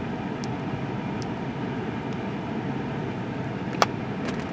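Steady low rumble of a car heard from inside the cabin, with a few light ticks and one sharper click near the end.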